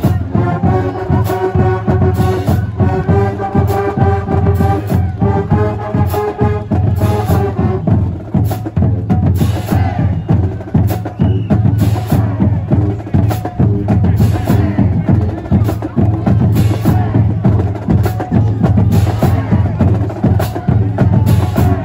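Marching band playing: the brass section holds chords over the drumline's beat, then the horns drop out about eight seconds in and the drumline carries on alone with a fast drum cadence.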